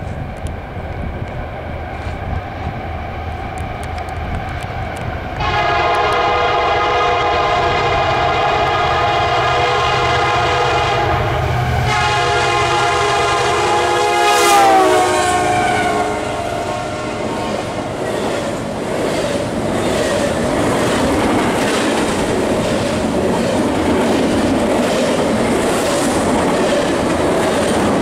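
Norfolk Southern EMD SD70ACe diesel locomotive approaching with a low engine rumble, then sounding its multi-note air horn in two long blasts about five seconds in, the horn's pitch dropping as the locomotive passes. The double-stack intermodal cars then roll by, their wheels clacking steadily over the rail joints.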